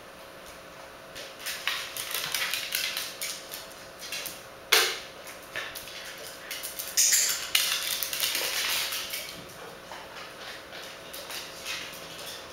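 A corgi's claws tapping on a tile floor as it moves about, mixed with sharp clicks and clinks, a loud one about five seconds in and another about seven seconds in.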